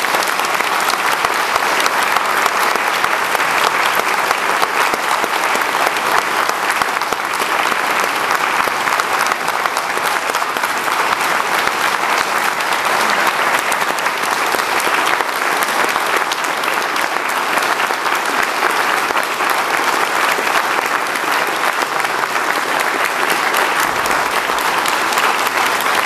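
A church congregation applauding steadily and loudly, a long sustained round of clapping that welcomes and accepts a newly installed pastor.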